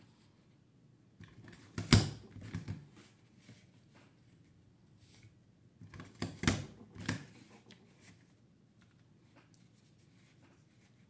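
A paper border punch clunking as it cuts the edge of a sheet: a cluster of sharp clacks about two seconds in and another about six to seven seconds in, with light paper rustling and handling ticks between them.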